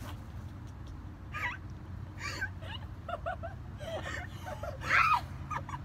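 A young woman's short high-pitched squeaks and whimpers, a quick run of them with the loudest about five seconds in, as if straining and half-laughing.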